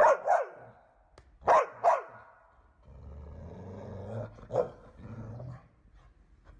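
A dog barking: two quick barks, two more about a second and a half later, then a low growl lasting a few seconds with one more bark in the middle of it.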